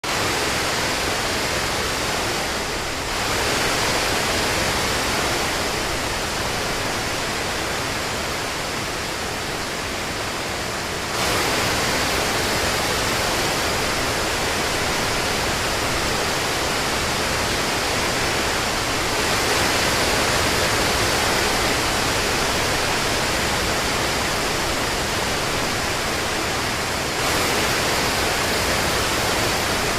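Steady rain, a dense even hiss without separate drops standing out. The level jumps suddenly about three, eleven and twenty-seven seconds in.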